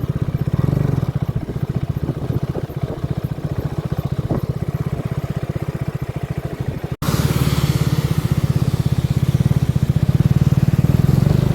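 KTM 250 Adventure's single-cylinder engine running steadily as the motorcycle is ridden, with a rapid even pulse. About seven seconds in it cuts off abruptly and returns louder, with more wind hiss over it.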